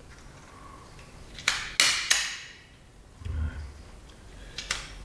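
The side cutter of a wire stripper snipping off excess ends of copper installation wire one at a time: three sharp snaps about a third of a second apart around a second and a half in, a dull knock near the middle, and two more snaps near the end.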